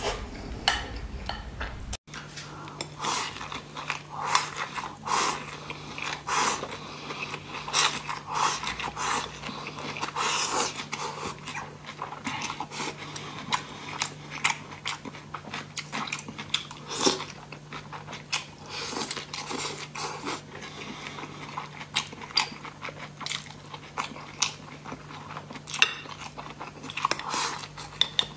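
Close-miked eating sounds: a person biting and chewing food taken with chopsticks, with many short crisp mouth clicks and smacks. The sound changes abruptly about two seconds in, and a low steady hum runs underneath after that.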